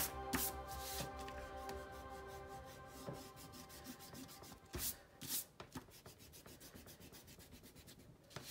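Rubber eraser rubbing on paper in short, separate strokes. Faint music fades out over the first few seconds.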